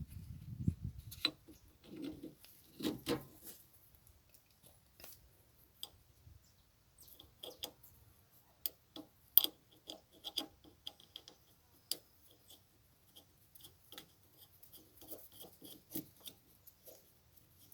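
Irregular small metallic clicks and scrapes of a wrench and nuts being worked on a U-bolt clamp, as it is refitted and tightened. The sharpest click comes about nine seconds in.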